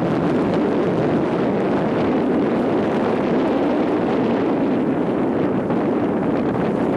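Steady wind noise buffeting the microphone, an even rushing with no distinct events.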